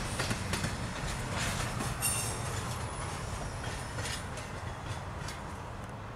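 Double-stack intermodal freight train's last cars rolling over the rails: a steady rumble of wheels with scattered clicks over the track, slowly fading as the end of the train moves away.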